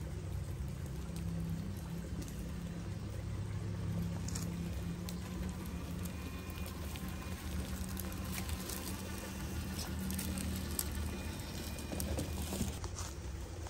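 Traxxas TRX-4 scale RC crawler driving over leaf litter: a low motor and gear hum with crackling and crunching of its tyres on dry leaves and twigs, the crackles growing busier from about four seconds in as it comes close.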